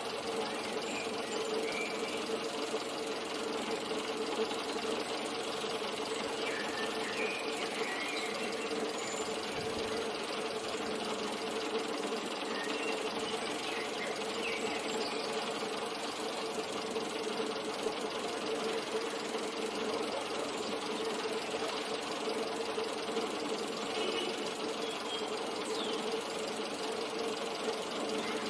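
Steady mechanical hum from a running motor, with one droning tone and a few fainter ones beneath it, unchanging throughout.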